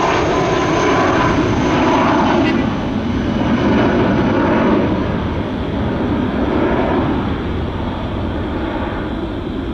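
Jet engines of a jetBlue Airbus A320-family airliner at climb thrust after takeoff, a steady roar that fades slowly as the aircraft climbs away.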